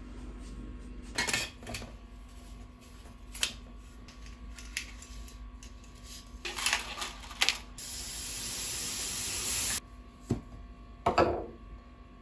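Kitchen handling sounds: sharp clicks and clatters as dry spaghetti is shaken out of a glass canister into a plastic microwave pasta cooker. Tap water runs into the container for about two seconds, and it stops abruptly. Near the end come a couple of knocks as the container and a ceramic salt pot are handled.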